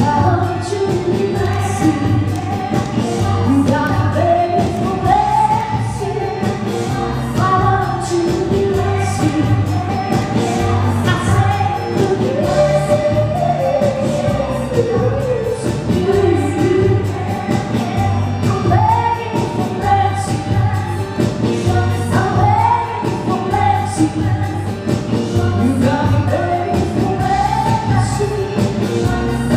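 A woman singing a pop song over backing music with a steady bass beat.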